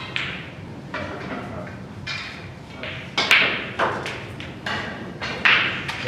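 Snooker balls clicking, a string of sharp knocks spread over several seconds, the loudest a little past three seconds and near five and a half seconds, each with a brief ring.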